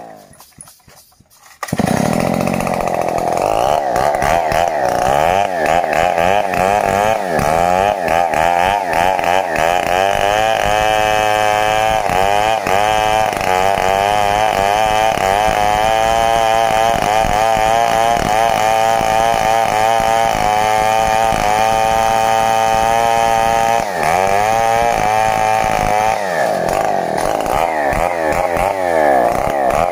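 Stihl 070 two-stroke chainsaw running under load as it cuts into the trunk of a standing tree. Its pitch wavers up and down as the chain bites. The saw starts abruptly after a brief quiet gap near the start.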